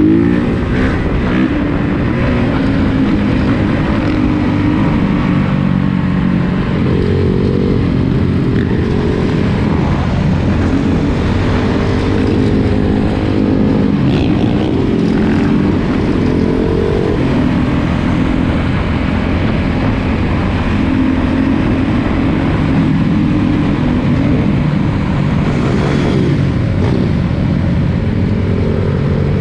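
Honda CRF450's single-cylinder four-stroke engine running under way, its pitch rising and falling again and again as the throttle opens and closes.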